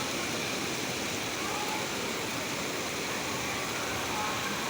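Steady rush of falling water from Umbrella Waterfall, a constant, even noise.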